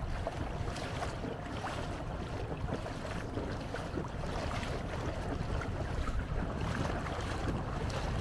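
Steady wash of water and wind noise from a canoe under way on a canal, with a low rumble of wind on the microphone.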